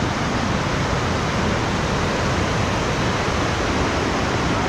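River rapids rushing: a loud, steady noise of fast-flowing water.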